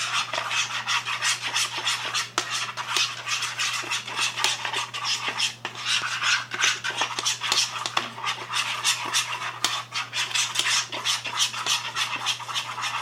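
Spoon stirring white glue tinted with food colouring in a bowl, scraping and clicking against the bowl in quick, irregular strokes, over a steady low hum.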